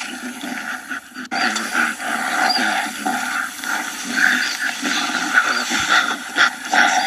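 Gorilla vocalizing: a continuous run of short grunts, broken by a sudden cut a little over a second in, then resuming.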